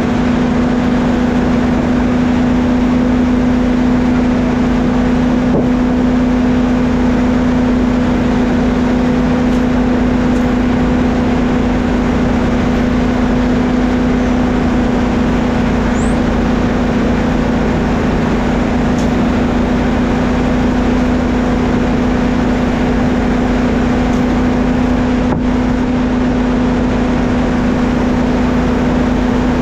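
Sawmill machinery running steadily, with a constant hum and an unchanging pitch.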